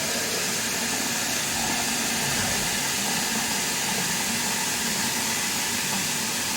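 Water running steadily from a kitchen tap, a constant hiss as it fills a container.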